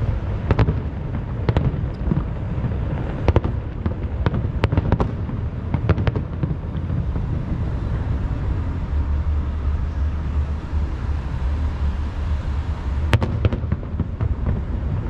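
Fireworks display: aerial shells bursting in sharp bangs and cracks, several in the first six seconds, then a lull before more near the end, over a steady low rumble.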